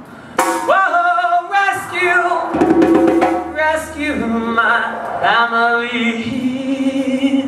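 Lead singer singing a drawn-out melodic line in several long phrases with sliding pitch, ending on the word "family".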